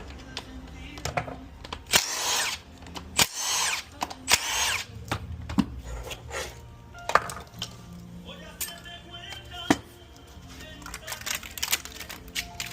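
A power tool, such as a drill or impact driver, run in three short bursts about a second apart, each under a second long, with scattered metallic clicks and clatter around them, as during the teardown of a 4L60E automatic transmission.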